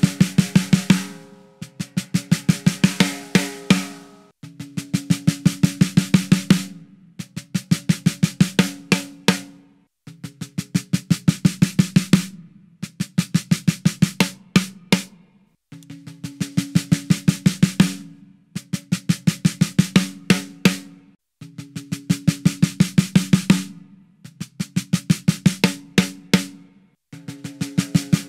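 PDP Concept Series steel snare drum played in short runs of quick stick strokes that grow louder through each run, about one run every two and a half seconds with brief pauses between, and a low ring under the strokes. It is played first unmuffled, then with two Mini Muff clip-on dampeners on the batter head.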